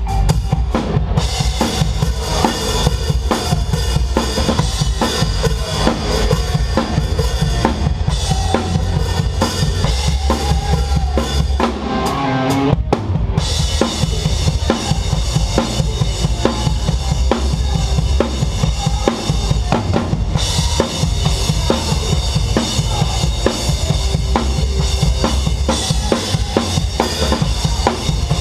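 Rock band playing live, with the drum kit loud and up front: bass drum, snare and rimshots. There is a short break near the middle with a downward slide in pitch before the full band comes back in.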